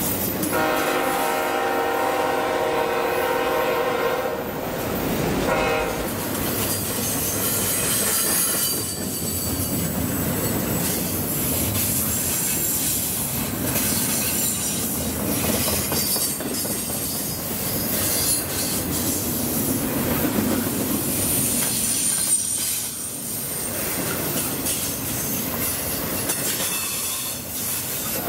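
A freight locomotive's horn sounds one long blast of about four and a half seconds, followed by a brief toot about a second later. After that, double-stack intermodal well cars roll past with steady wheel-on-rail noise and a high-pitched wheel squeal now and then.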